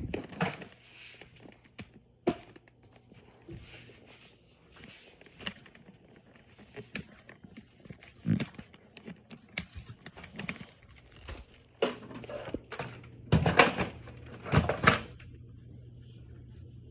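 Scattered knocks, taps and thunks of small objects being handled and set down, with two louder half-second bursts of clattering about three-quarters of the way through.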